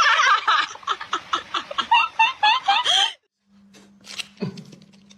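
A person laughing hard in high-pitched, rhythmic pulses that stop abruptly about three seconds in. After that there is only a faint steady hum with a few light clicks.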